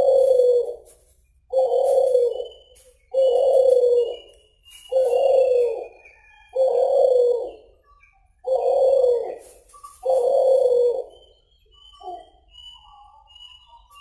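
A caged suhu (kulhu) dove cooing over and over: seven low, drawn-out coos of about a second each, one every second and a half or so, then a short fainter one near the end, when the cooing stops. Faint high chirps sound behind it in the later seconds.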